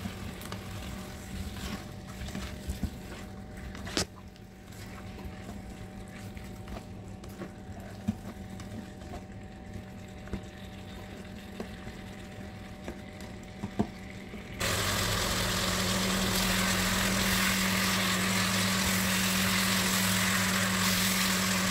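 Chicken pieces frying in a non-stick pan, with the spatula knocking against the pan a few times over a low steady hum. About two-thirds of the way in, a much louder, steady sizzle starts abruptly and runs on.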